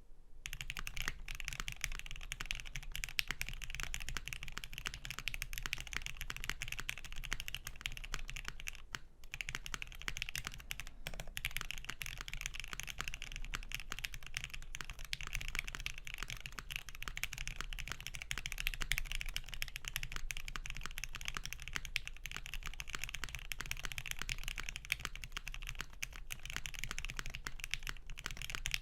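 Custom mechanical keyboard with a GS 60 case, UHMWPE plate, Gateron Ink Black linear switches lubed with 205g0, GMK keycaps and Cherry clip-in stabilizers, being typed on continuously at a fast, steady pace. There is a brief pause about nine seconds in.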